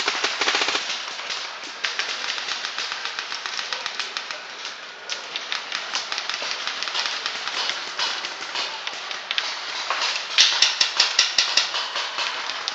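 Paintball markers firing in rapid strings of sharp pops, several guns shooting at once. A fast, louder string of shots comes just after the start and again about ten seconds in.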